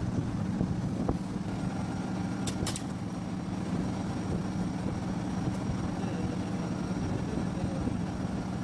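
Rewound ceiling fan running on test: a steady electric motor hum with a whoosh of moving air, and a few light clicks in the first three seconds.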